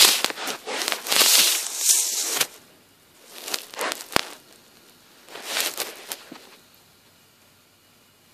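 Rustling and scraping handling noise as the camera is jostled and moved over the carpet, in a few uneven bursts, with one sharp click about four seconds in.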